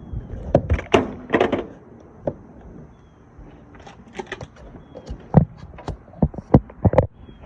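Irregular knocks, taps and clicks of hard objects being handled, with a quick cluster in the first second or so and several sharper knocks near the end.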